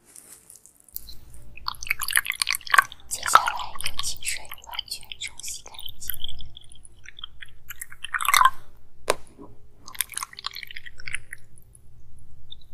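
Water poured and sloshed between a glass tumbler and a cup, with wet splashing and crackling handling noises and a sharp click about nine seconds in.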